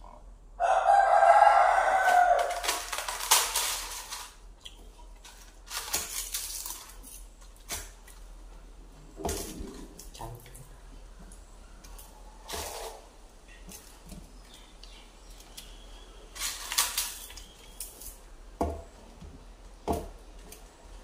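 A rooster crows once, loudly, starting about half a second in and lasting about two seconds. After it come scattered short clicks and rustles of eating by hand from a steel plate.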